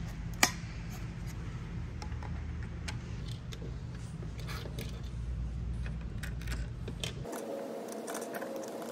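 Light metallic clicks and clinks of small brass nuts and lock washers being picked up and fitted onto a boat gauge's threaded posts by hand, over a steady low hum that changes abruptly about seven seconds in.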